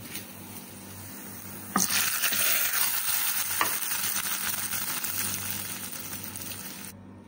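Chhaunk (tadka) of hot oil with fried onions and green chillies poured into a pot of mutton and chana dal dalcha, sizzling. The sizzle starts suddenly about two seconds in and dies away over the next few seconds.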